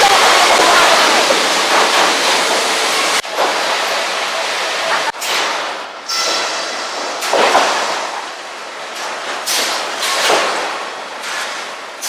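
Loud sawmill machinery: a steady rushing din of lumber conveyors running, with several louder swells in the second half and abrupt breaks about three and five seconds in.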